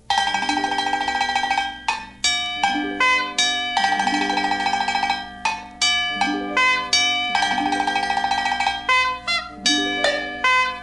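Instrumental music: bright, sharply struck notes in a quick rhythm over lower notes that step upward.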